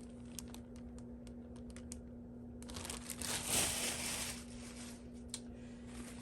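Plastic factory packaging around a handbag crinkling as it is handled, with a few small ticks at first and a louder rustle in the middle.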